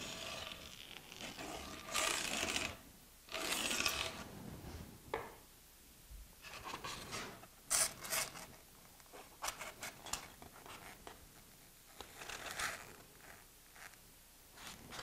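Polystyrene foam board rubbing and scraping as a foam band is handled and pressed into place against a foam wall: two longer scrapes near the start, then shorter scratches and a few sharp clicks.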